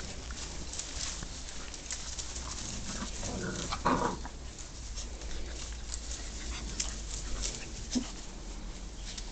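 German shorthaired pointer puppies at play: one puppy gives a short whining cry about three and a half seconds in and a brief squeak near the end, among faint small clicks and rustles of movement.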